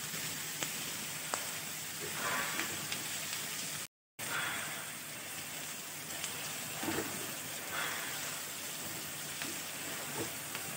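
Chopped vegetables sizzling as they fry in oil in a metal kadhai, with a wooden spatula stirring them and now and then clicking and scraping against the pan. The sound breaks off briefly just under four seconds in.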